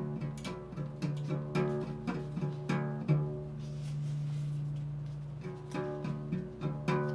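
Ektara, a one-string drone instrument, plucked over and over on one low pitch at about three plucks a second. For about two seconds in the middle the plucking stops and a single tone is held and swells.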